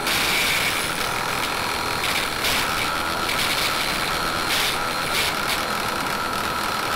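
Raitool 350 W mini lathe running at speed while a makeshift chisel cuts a spinning softwood blank: a steady motor whine under a loud, hissing scrape that surges now and then. It stops abruptly near the end.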